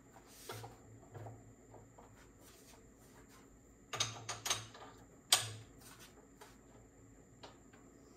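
Small tools and metal parts being handled at a workbench and vise: a few faint ticks, then a quick cluster of sharp clicks about four seconds in and the loudest knock a little after five seconds.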